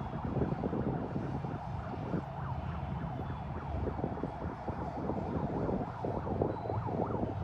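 City street traffic with a siren wailing, its pitch rising and falling.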